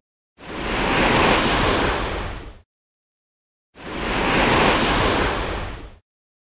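Two swells of rushing noise, each rising and fading over about two seconds, with dead silence between and after them: whoosh sound effects.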